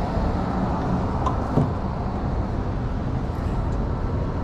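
Steady low rumble of city street noise, with no clear single event standing out.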